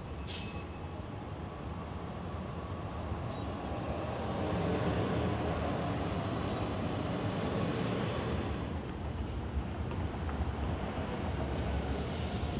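Steady low rumble of city vehicles at a light-rail platform, swelling about four seconds in and holding, with a brief sharp hiss just after the start.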